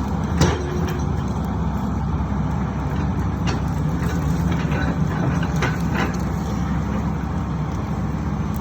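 Excavator's diesel engine running steadily under load, with a few sharp metallic knocks. The loudest knock comes about half a second in.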